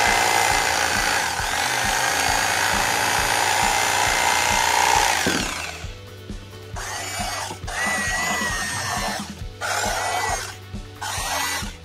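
Electric bread knife running, its blades sawing through old seat foam. It runs steadily for about five and a half seconds, stops, then cuts again in shorter runs with brief pauses.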